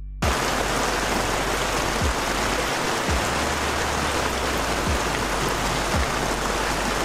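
Heavy rain pouring down steadily, starting suddenly, with a few dull low thumps scattered through it.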